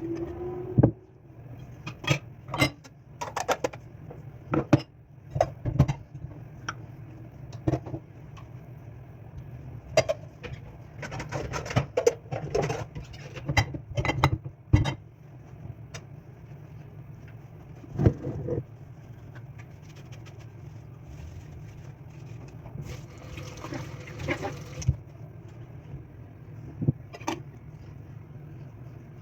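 Irregular knocks and clatter of objects being handled, dense at first and sparser later, over a steady low hum.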